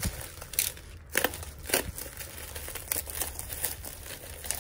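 Bubble wrap packaging crinkling and rustling as it is handled and opened, with scattered sharp crackles.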